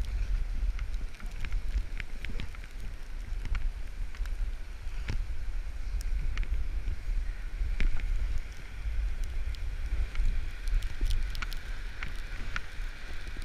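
Skis sliding and scraping over snow on a downhill run, with wind rumbling on the microphone and scattered sharp clicks throughout.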